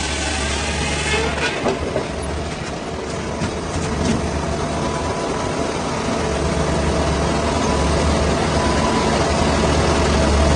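A heavy engine running steadily with a low drone, and a few knocks about two and four seconds in.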